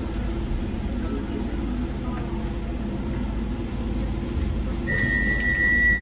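Low, steady rumble of a Docklands Light Railway train heard from inside the car. About five seconds in, a steady high-pitched tone starts and holds.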